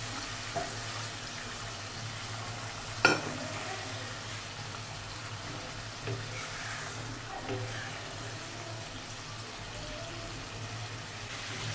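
Tilapia pieces in mustard-paste gravy sizzling steadily in a pan. A single sharp knock comes about three seconds in, and a few lighter taps follow.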